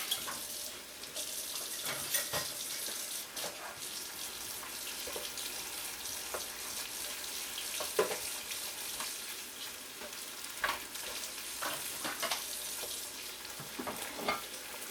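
Sauce sizzling in a hot pan with a steady hiss, while a utensil stirs it and now and then clinks against the pan.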